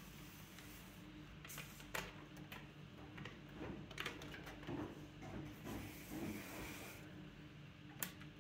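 Electric potter's wheel running with a steady low hum while a trimming tool scrapes leather-hard terracotta clay. From about a second in come light scrapes and a few sharp clicks as the tool is worked and handled.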